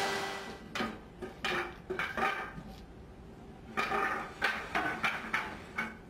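Sawn timber boards knocking and clattering against each other as they are handled and shifted, an irregular run of sharp wooden knocks, busiest in the second half.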